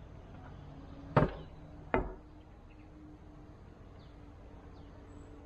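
Two sharp knocks a little under a second apart, the first the louder, over a faint outdoor background with a few faint high chirps.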